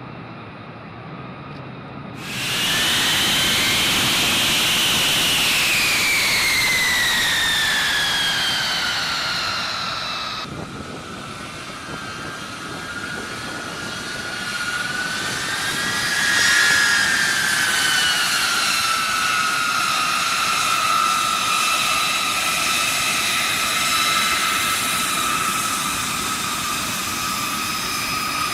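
Jet engines of a B-52H Stratofortress, its eight TF33 turbofans at takeoff power. The sound is a loud rush with a high whine that falls in pitch as the bomber goes by. The sound jumps in suddenly about two seconds in and changes abruptly near ten seconds, after which a second whine swells and falls, then holds steady.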